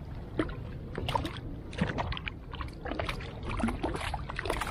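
Small waves lapping and slapping against a plastic kayak hull in irregular small splashes, over a low rumble of wind on the microphone.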